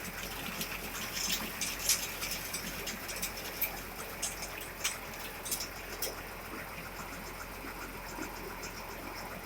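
Concrete mixer running: a steady rushing noise with scattered sharp clicks and taps, most of them in the first six seconds.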